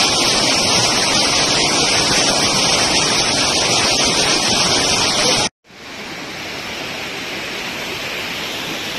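Fast floodwater rushing and churning through a street, a loud, steady rush of water. About five and a half seconds in it cuts off abruptly, then resumes somewhat quieter.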